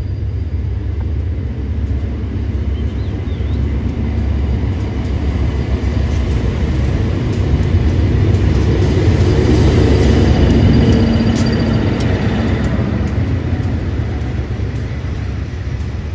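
State Railway of Thailand GEA-class diesel-electric locomotive 4537 pulling a passenger train in to the platform: a deep engine rumble that swells as the locomotive passes about ten seconds in, with a run of wheel clicks on the rails, then eases as the coaches roll by.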